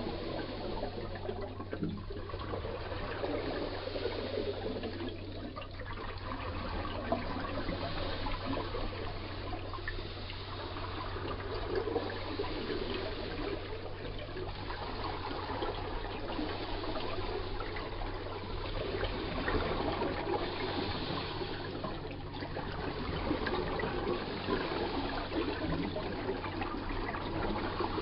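Underwater bubbling and gurgling from a scuba diver's breathing regulator, swelling and easing every few seconds, over a steady low hum.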